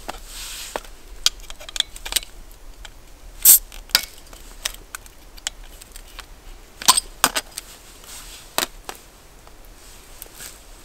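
Metal tools clinking on a metal plate and a glass beer bottle being handled as its crown cap is prised off with an opener: a scattered series of sharp clinks and clicks, the loudest about three and a half seconds in and again around seven seconds.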